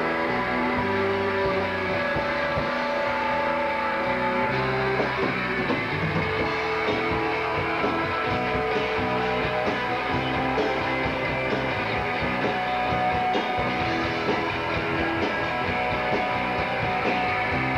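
Live rock band playing a song, with guitar prominent in a dense, steady mix.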